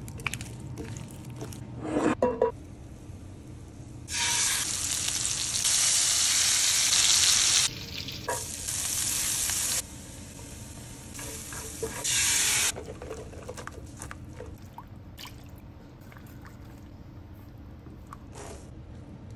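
Food sizzling in a hot stainless-steel skillet in several loud spells that start and stop abruptly, between about four and thirteen seconds in. Lighter clicks and scrapes of kitchen utensils come between them, and it is quieter near the end.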